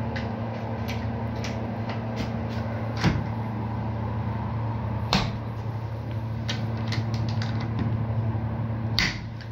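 Brass toggle latches on the doors of a SureHatch SH4000 egg incubator being clicked shut: lighter clicks and three sharper knocks, about 3, 5 and 9 seconds in. Underneath, the incubator runs with a steady hum, its doors closed again.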